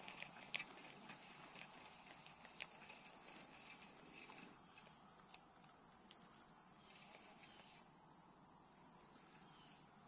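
Faint, steady insect chorus, a high even hum, with a couple of small clicks in the first few seconds.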